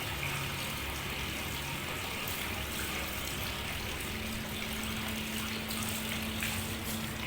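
Water running steadily from a tap, with a low steady hum joining about four seconds in.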